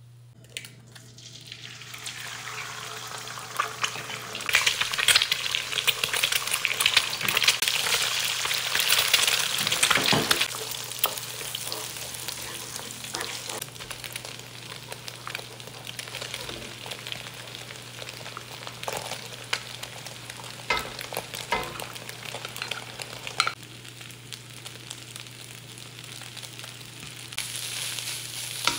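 Egg and rice frying in hot oil in a nonstick wok, sizzling, with a wooden spatula scraping and tapping the pan as it stirs. The sizzle builds over the first few seconds, is loudest for several seconds, then settles lower as the rice is stirred through.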